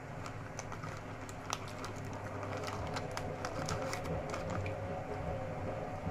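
Light crackling and rustling as a strip of soda crackers is handled and snapped apart, then bitten, over a steady low hum.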